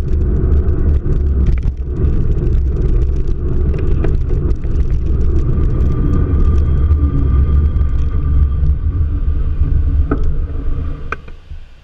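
Steady low rumble of a car driving, with light ticks and rattles over it, falling off quickly near the end.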